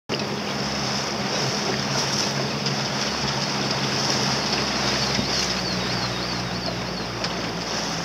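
Outboard motor running steadily as it drives an inflatable dinghy, with water rushing past the hull and wind on the microphone.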